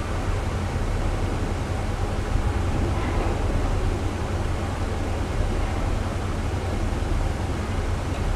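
Steady hiss with a low hum underneath: a recording's background noise, with no music or speech.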